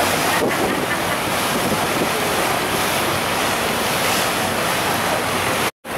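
Steady wind on the microphone mixed with the wash of river water, an even rushing noise that cuts out completely for a moment just before the end.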